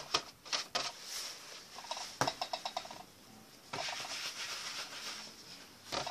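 Hands handling and setting balls of dough down on a baking sheet: a few light knocks and taps, with a quick run of small ticks about two seconds in and soft rubbing in between.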